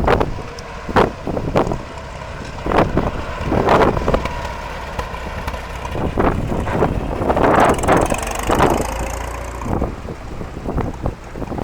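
Farm tractor engines running in a passing parade, with gusts of wind repeatedly buffeting the microphone.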